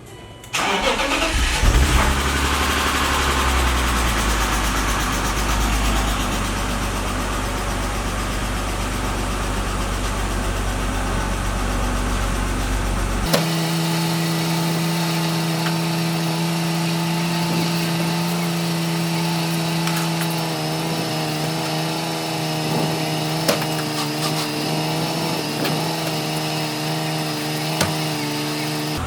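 A car engine starting about half a second in and then running. About 13 seconds in the sound changes abruptly: the deep rumble drops away and a steadier, higher-pitched running hum takes over.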